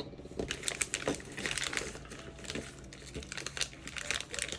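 Plastic packaging crinkling as it is handled and opened by hand, a dense, irregular run of small crackles.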